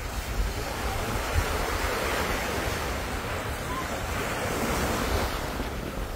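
Small waves washing up on a sandy beach in a steady surf wash, with wind buffeting the microphone as a low rumble.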